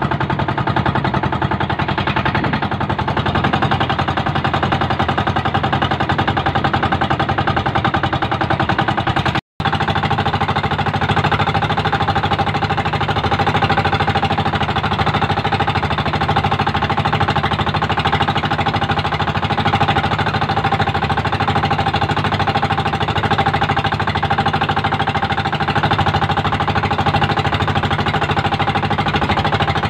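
The small engine of a motorized bamboo outrigger fishing boat (bangka) running steadily under way while trolling, a loud, fast, even chugging. It cuts out for an instant about nine seconds in.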